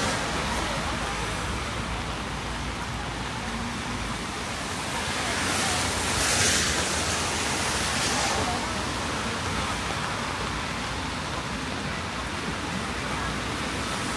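Steady rain on a city street with tyres hissing on the wet road, swelling as a vehicle passes about six seconds in and again soon after.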